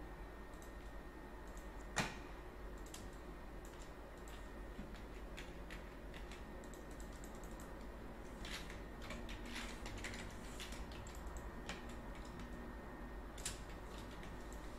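Computer keyboard and mouse clicking: scattered light clicks, one sharper click about two seconds in and a quicker run of clicks in the second half, over a faint steady hum.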